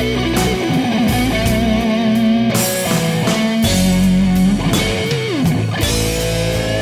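Rock music with an electric guitar playing a lead line of bending notes, without singing.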